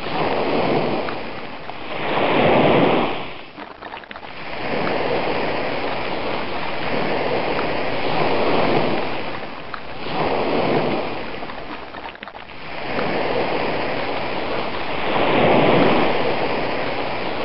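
Ocean surf: waves breaking and washing in, swelling and fading in slow surges every few seconds.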